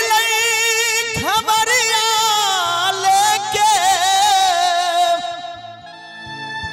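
A male singer belts out a long, held phrase of a Maithili Purvi folk song, his pitch wavering with vibrato. He rises into it at the start, re-attacks about a second in, and lets it die away about five seconds in. Keyboard organ accompaniment keeps playing steady chords underneath and carries on after the voice stops.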